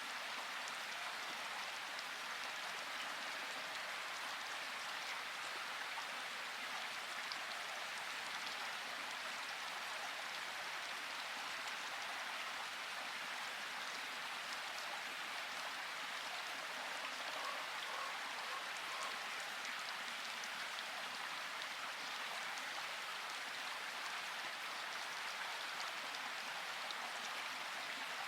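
Steady rain falling, an even hiss of drops with faint individual patters.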